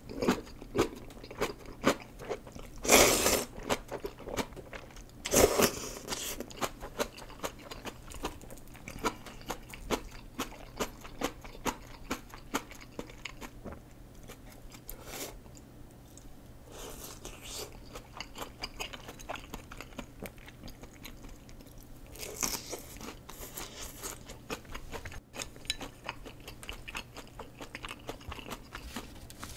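Close-up eating sounds: a few loud noodle slurps in the first six seconds, then steady wet chewing of ramen noodles, with crunchy bites into a fried shrimp tempura about halfway through.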